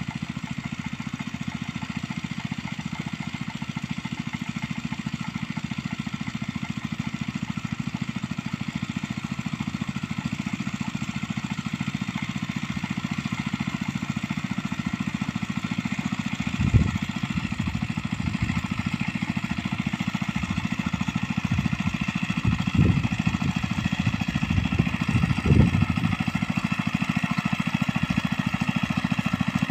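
Small engine of a mini rice-paddy plough running steadily, growing slightly louder. There are a few low thumps in the second half.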